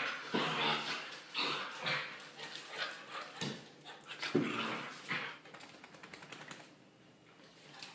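Siberian husky puppies play-fighting, yipping and whining in a string of short bursts that thin out and grow quieter near the end.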